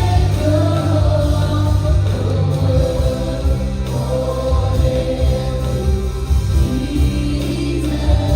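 Live congregational worship music: a band with bass and guitar playing while a group of singers sings a sustained melody.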